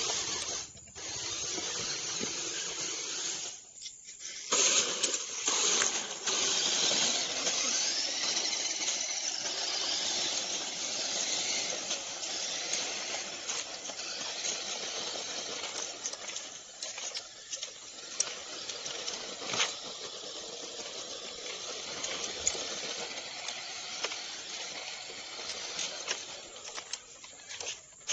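Radio-controlled 4x4 model trucks driving over gravel: a steady hissing whir of small motors and tyres, with a few faint rising and falling whines and scattered sharp clicks.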